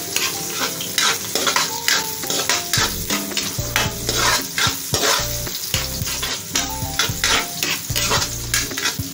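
Garlic and green chili sizzling in hot oil in a metal wok, stirred with a metal spatula that scrapes across the pan in repeated strokes.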